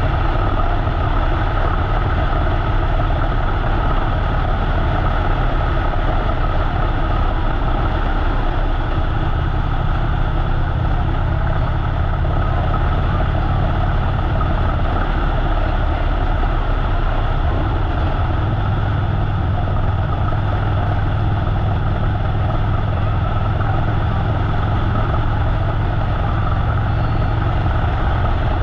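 Harley-Davidson V-twin motorcycle engine running steadily while riding along a highway, with road and air noise. The engine note shifts slightly a couple of times with changes in throttle.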